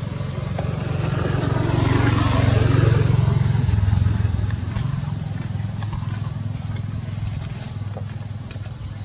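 A motor vehicle's engine passing by, growing louder to a peak about three seconds in and then fading, over a steady high hiss.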